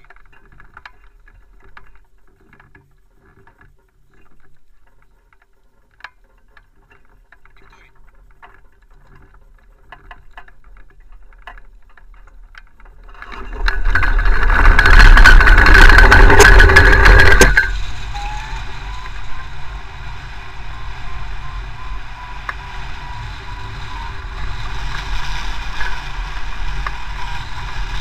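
Hang glider's wheeled launch cart rattling and rumbling over grass as the tow launch gets going, with wind on the microphone. The noise cuts off suddenly a few seconds later as the glider lifts off the cart, leaving a steadier drone of wind and a tow engine with a faint rising tone. Before the roll there are only faint clicks and handling noises.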